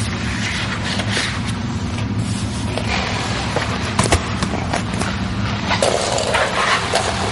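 Squeegee rubbing and scraping over camouflage vinyl on a boat's metal transom as the film is worked down around a tie-down hook: uneven swishes and scrapes with short clicks, a sharp one about four seconds in, over a steady low hum.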